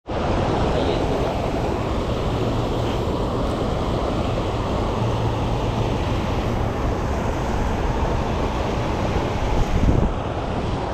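Steady rushing of a fast-flowing creek running high after rain, with a brief louder surge about nine and a half seconds in.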